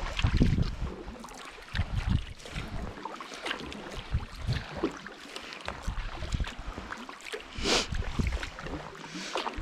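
Sea kayak paddle strokes: the blades dipping and splashing in calm water, with drips and trickles between strokes and uneven wind buffeting on the microphone. One louder splash comes about three-quarters of the way through.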